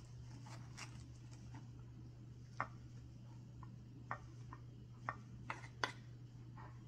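A few sharp, light taps and clicks of kitchenware as a salad is put together, about five of them spread over the second half, over a steady low hum.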